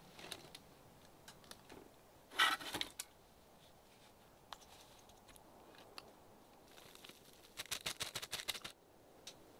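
Small handling noises of food containers at a table: scattered light clicks and a short rustle about two and a half seconds in, then near the end a quick run of plastic rustling as powdered sugar is shaken from a zip-top bag.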